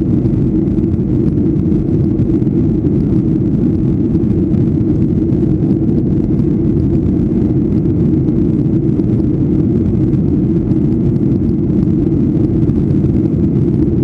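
Steady low drone of a Boeing 757-200 airliner's cabin in descent: engine and airflow noise heard from inside, even throughout with no changes.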